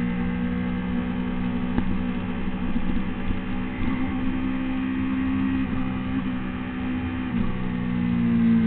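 Honda CBR600RR's inline-four engine running at a steady, high-speed pitch from on board the bike, over a rush of wind and spray noise. The note dips briefly about seven seconds in, then grows louder near the end.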